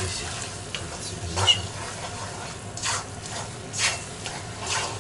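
Food sizzling in a cast-iron kazan while a utensil stirs and scrapes through it, about one scraping stroke a second, as eggs are mixed into the frying mix. One sharp clink about one and a half seconds in.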